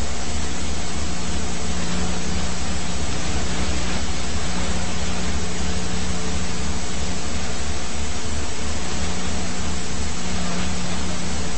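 Police helicopter engine and rotor noise heard from aboard: a steady, loud hiss over a low hum and throb that does not change.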